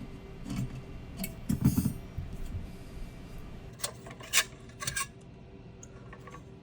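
Clicks and light knocks of small hard metal and plastic parts being handled and taken off during teardown of a Goldshell Mini-DOGE ASIC miner, most likely the fans coming off. About half a dozen sharp clicks come at irregular intervals, the loudest with a low thud near two seconds in, then it goes quiet after about five seconds.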